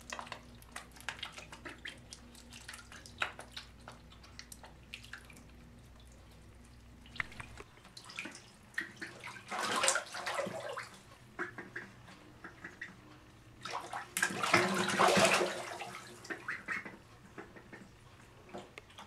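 Ducklings paddling and dabbling in a bathtub of water, giving small drips and splashes throughout. There are two bursts of louder splashing, one about halfway through and another a few seconds later.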